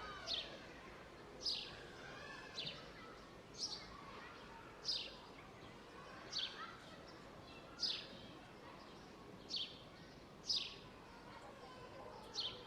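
A songbird repeating a short, high, downward-sliding chirp about ten times, roughly once every second or so, over a faint steady outdoor background.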